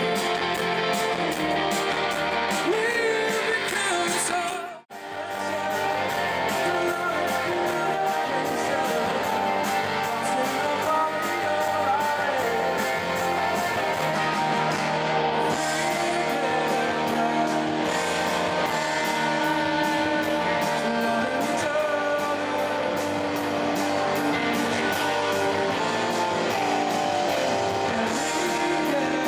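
Live rock music: an amplified electric guitar played under a man's singing voice. About five seconds in, the sound cuts out almost completely for a split second, then comes straight back.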